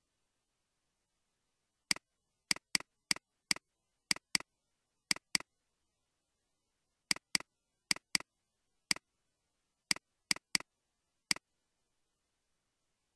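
Computer mouse clicks: about sixteen sharp clicks, several in quick pairs that are double-clicks, from navigating drives and folders in Windows.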